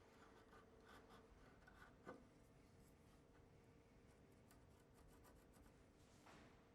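Near silence, with faint light scratching and scattered ticks from a marking gauge and pencil scribing a line on the wooden door edge, and a soft tap about two seconds in.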